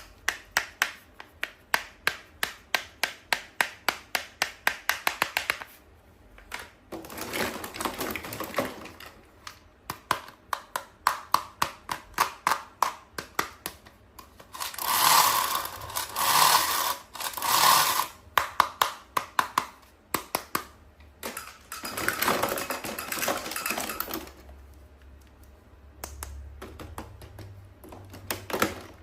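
Toy packaging being handled close up: quick, even taps or clicks at about four a second alternate with stretches of rustling. The loudest rustling comes about halfway through.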